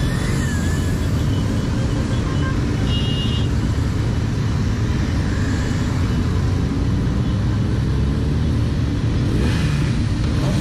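Many motorcycles riding together in a group, their engines mixed with steady wind rush on the microphone of a moving motorcycle.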